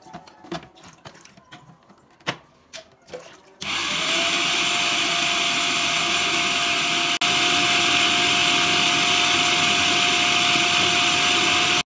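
Electric food processor running, chopping a thick paste for homemade nuggets: a steady motor noise with an even whine. It starts suddenly about three and a half seconds in, after a few light clicks and knocks, and cuts off abruptly near the end.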